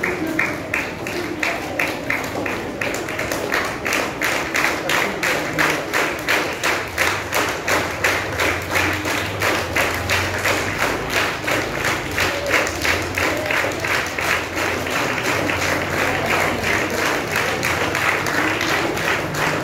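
A steady, even beat of sharp strokes, about four a second, running on without a break.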